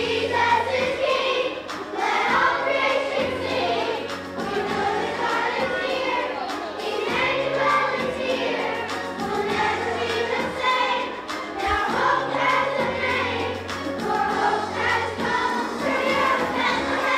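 Children's choir singing in unison over instrumental accompaniment, with a steady bass line whose notes change every couple of seconds under the voices.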